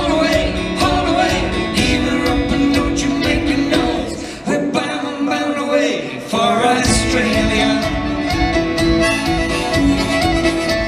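A live Celtic band playing: fiddle, acoustic guitar and drum kit, with a voice singing. The drums and low end drop out for about two seconds just before the middle, then the full band comes back in.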